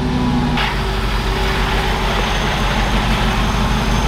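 Mercedes-Benz G500's V8 idling just after a start. The first, stronger idle eases about half a second in, with a short click, and the engine then idles steadily.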